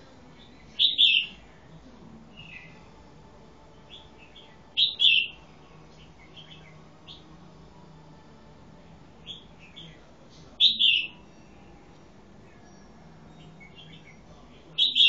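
Caged red-whiskered bulbul calling: a loud, short, high phrase about every four to five seconds, four times, with softer chirps in between.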